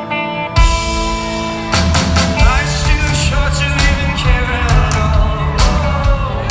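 Live rock band playing a song: a sustained guitar intro, then the full band crashes in about half a second in with heavy bass, and the drums join with a steady beat just under two seconds in.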